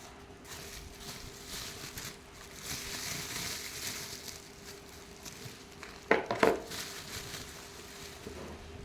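Hand-handling noise of packaging and parts: rustling and crinkling for a few seconds, then two sharp knocks close together about six seconds in, over a faint steady hum.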